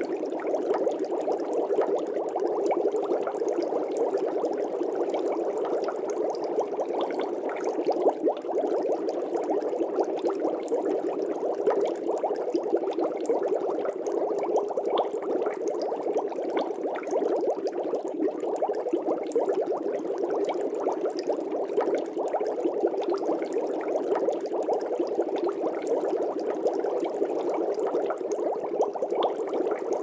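Aquarium water bubbling steadily, a dense, even stream of small bubbles.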